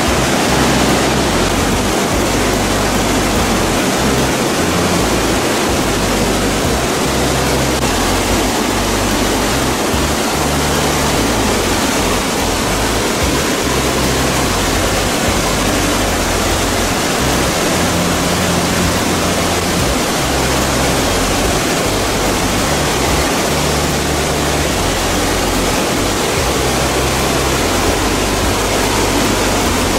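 Waterfalls of the Vis river crashing down rock cascades and out of a stone mill arch: a loud, steady rush of white water.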